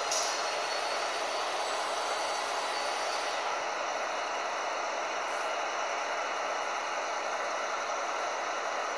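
Train running alongside a station platform: a steady rushing rail noise, with a faint high whine rising over the first few seconds.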